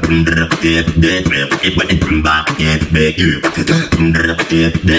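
Vocal beatboxing: fast mouth-made percussion of clicks and snare-like hits over hummed pitched bass notes.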